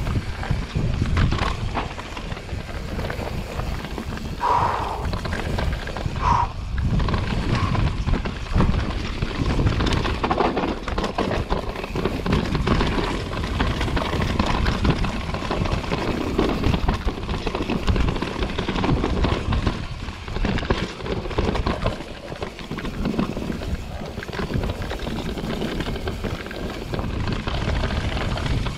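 Mountain bike descending a rough dirt trail at speed: a steady rumble of tyres over dirt, roots and rocks, with constant rattling and knocks from the bike.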